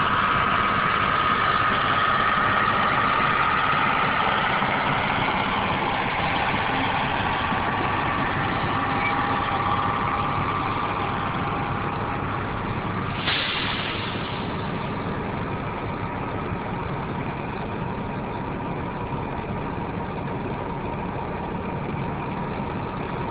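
Heavy farm machinery engine running steadily, with a high whine that fades away over the first half. A brief hiss comes about thirteen seconds in, and the whole sound slowly grows quieter.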